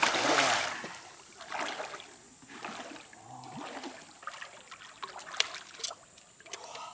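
A fish striking a surface lure with a loud splash that dies away within about a second. After it comes quieter lapping water, with a couple of sharp clicks near the end.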